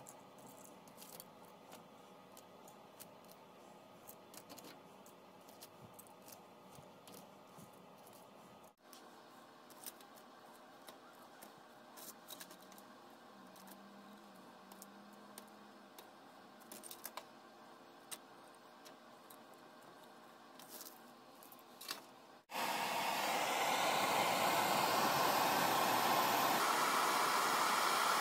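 Faint small metal clicks as pieces of scrap gold jewellery are set into a ceramic crucible with tweezers. About 22 seconds in, a handheld gas torch cuts in with a loud, steady hiss as its blue flame heats the gold to melt it.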